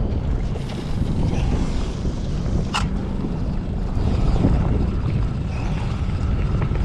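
Wind buffeting the microphone, a steady low rumble, with one sharp click about three seconds in.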